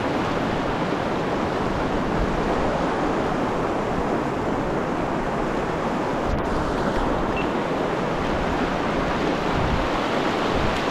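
Steady rushing of river water running close by, an even unbroken hiss.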